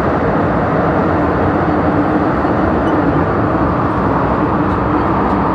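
MTR Tsuen Wan line M-train, a Metro-Cammell electric multiple unit, running through an underground tunnel: a loud, steady rumble of wheels on rails and rushing air, with an even hum running through it.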